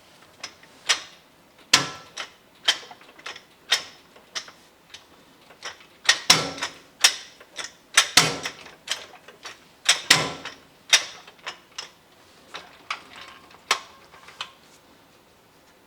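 Irregular sharp metallic clicks and clanks, some ringing briefly: tools and metal parts being handled. They come thickest about halfway through.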